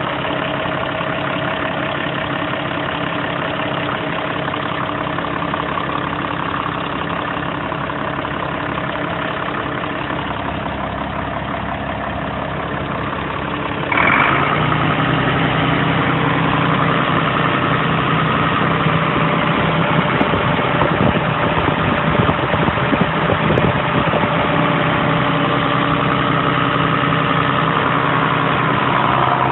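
International 6.8-litre six-cylinder turbo diesel engine of a 1973 International 1066 Turbo tractor running steadily at idle. It steps up suddenly in loudness about halfway through.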